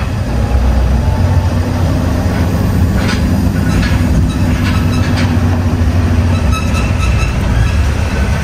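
Scania V8 truck's diesel engine running, a steady low rumble, with a few faint clicks and rattles over it.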